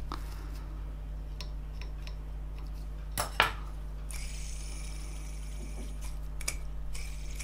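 Small clicks and taps of fly-tying tools being handled at the vise, the loudest a pair of clicks about three seconds in, over a steady low hum.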